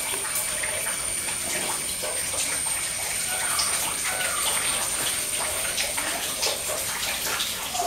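Steady wash of water after rain, dripping and trickling, with many faint scattered patters. A thin high whine holds steady throughout, and a couple of short chirping calls come about three and four seconds in.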